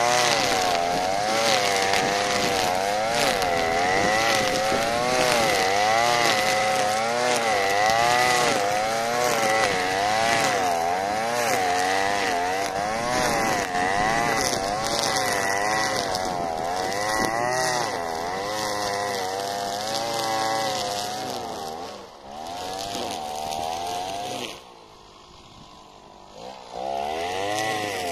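Alpina Star 55DP two-stroke petrol brushcutter running at high revs under load, cutting dry grass. Its pitch rises and falls about once a second with the sweeps of the cutting head. Near the end the sound drops sharply for about two seconds, then comes back.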